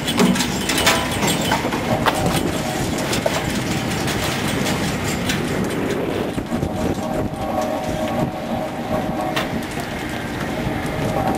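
Mackerel-fishing boat's deck machinery running: hydraulic line haulers hauling in hooked lines, with irregular rattling knocks through the first half. A steady whine joins the noise about six seconds in.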